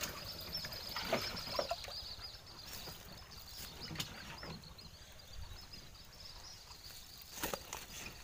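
A few sharp knocks and light water sounds from hands working in and over the side of a small wooden fishing boat, over a steady high chirping in the background.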